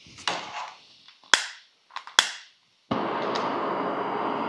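MSR Pocket Rocket 2 canister stove being lit: gas hissing from the opened valve, a few sharp clicks of a long-reach lighter, then about three seconds in the burner catches and burns with a steady rushing sound.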